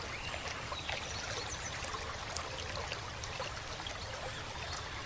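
Steady trickling and lapping of river water, with small scattered ticks and splashes.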